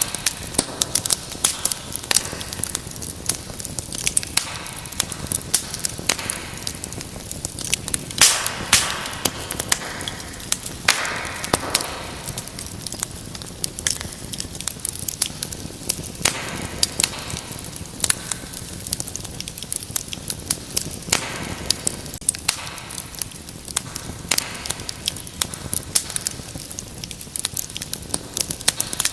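Wood fire crackling: a dense run of sharp pops and snaps over a steady hiss, with a couple of brief louder rushes of flame.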